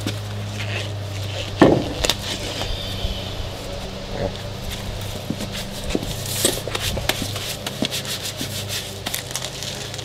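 A Toyota Tacoma's front wheel and tyre being worked loose and pulled off the hub by hand: one heavy knock a little under two seconds in, then a run of smaller knocks and scrapes as the wheel comes away. A steady low hum runs underneath.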